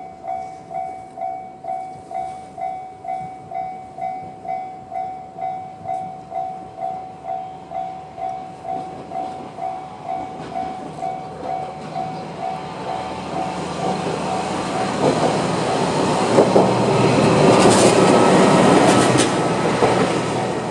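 Japanese level-crossing electronic warning bell in the JR standard tone, ringing about twice a second, while a YR-880 diesel railcar approaches and passes. The train's noise builds from about eight seconds in and is loudest near the end, with a couple of sharp wheel clacks.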